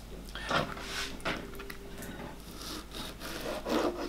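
A series of short rubbing, scraping strokes from kitchen prep: a bamboo steamer lid being handled, and a chef's knife drawn through raw fish fillet on a plastic cutting board.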